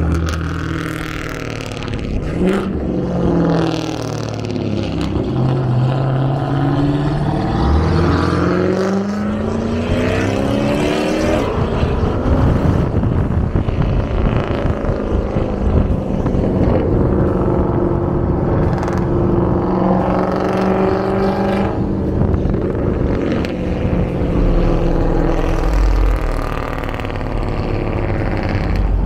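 Car engine accelerating hard, its pitch rising in long pulls through the gears, then running at a steadier pitch while cruising.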